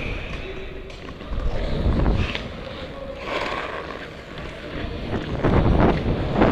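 Ice skate blades scraping and gliding on the rink, with wind rushing over a helmet-mounted microphone as the skater moves. It comes in uneven swells.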